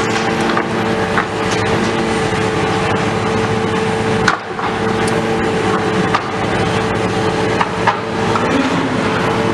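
Heavy demolition machinery running with a steady engine hum, with scattered sharp knocks and cracks of material being broken.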